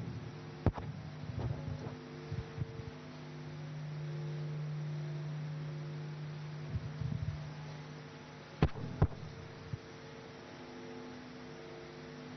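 Low, steady electrical mains hum through the sound system, growing louder for a few seconds in the middle. A few sharp clicks break in, two of them close together about three-quarters of the way through.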